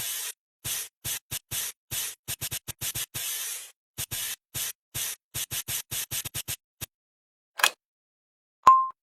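A fast, irregular run of short hissing bursts, then a single click and a brief pitched blip near the end.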